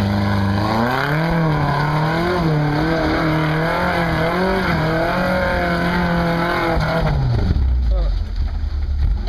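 Lifted Toyota pickup's engine working hard under load as the truck crawls up a steep rutted dirt climb, the revs rising about a second in and then swinging up and down with the throttle. About seven seconds in the revs drop away to a lower, rougher note.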